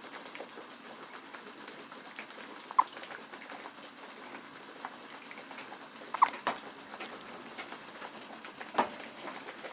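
Four-day-old newborn hiccupping: three short, sharp hiccups about three seconds apart.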